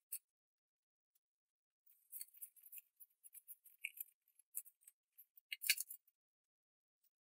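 Irregular run of light clicks and clinks from small hard parts being handled, starting about two seconds in, with a louder cluster near six seconds.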